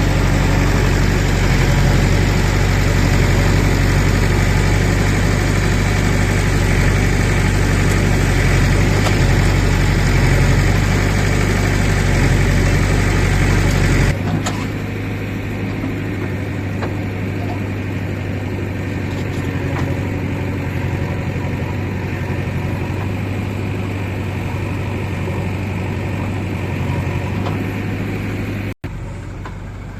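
Heavy diesel engine running steadily with a deep, even rumble. About halfway through, the sound changes abruptly and becomes quieter, with less of the deepest rumble.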